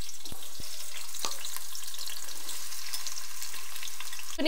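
Sliced onions sizzling steadily in hot oil and ghee, with a few light knocks of stirring in the first second and a half; the sizzle cuts off suddenly near the end.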